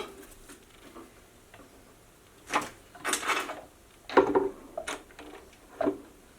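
Parts of a portable bandsaw being handled and set down during setup: a few short knocks and rattles, the loudest about four seconds in.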